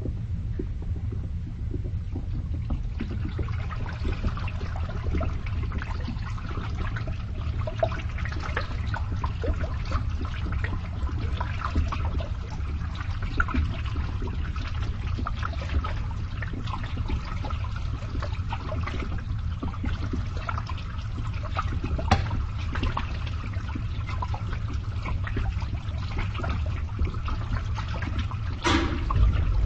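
Water draining and gurgling through a pipe over the steady low hum of a pump. The trickling and gurgling grows busier about three seconds in, with a short louder gurgle near the end.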